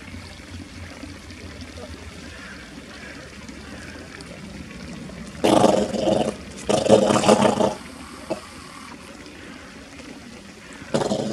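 Eastern Atlantic harbor seal making its odd, buzzy vocal noises: a pair of loud pitched bursts about halfway through, each under a second, and another starting near the end, over faint trickling water.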